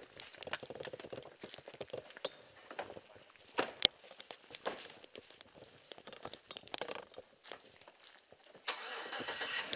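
Footsteps crunching irregularly through dry leaves and brush, with one sharp click about four seconds in. A steadier rushing hiss comes up near the end.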